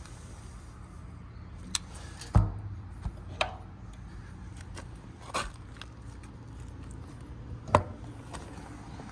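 A series of separate metal clanks and knocks from a truck service body's steel compartment doors and latches being handled, over a steady low hum. The loudest is a heavy thump about two and a half seconds in.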